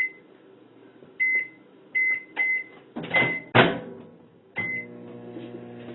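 Microwave oven keypad beeping as a cooking time is entered: six short, high beeps, with two loud knocks about three seconds in. Near the end the oven starts and runs with a steady hum.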